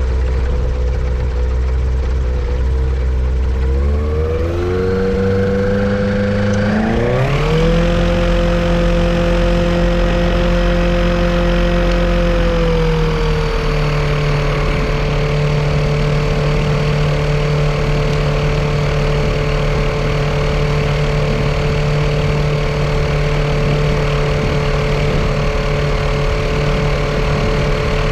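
Yamaha Apex engine of a Kitfox airplane on a ground run: it idles, is throttled up in two steps to a steady higher speed, eases back a little and holds, then begins to slow near the end. The engine has a misfire that the owner suspects comes from a vacuum leak.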